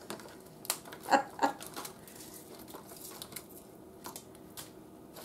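Plastic packaging crinkling and rustling faintly as frozen shrimp are handled and their tail shells pulled off, with a few sharper rustles in the first second and a half, then only small scattered ticks.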